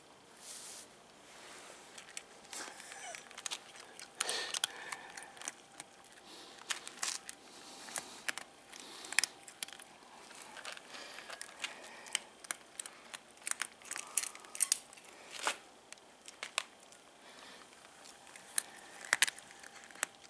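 Cats eating dry kibble from a metal bowl and a plastic tray: irregular crunching and sharp clicks of kibble against the dishes.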